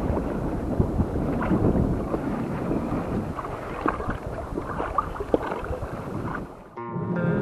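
Wind buffeting the microphone and water noise aboard a small kayak boat at sea, with scattered short knocks. Near the end it cuts off and background music begins.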